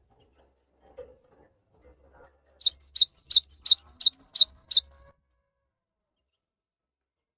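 Cinereous tit (gelatik batu) singing a quick run of about seven repeated high two-note phrases, starting about two and a half seconds in and stopping about five seconds in.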